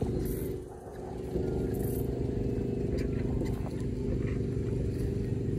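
An engine running steadily, its level dipping briefly about a second in and then holding steady.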